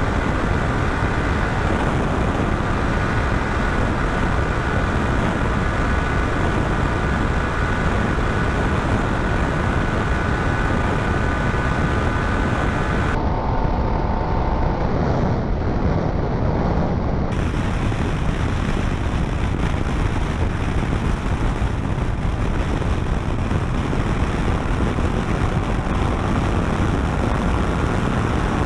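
Steady wind roar on the microphone mixed with the Yamaha Tracer 700's parallel-twin engine running at high revs, flat out near its top speed of about 200 km/h. For about four seconds past the middle the sound turns duller.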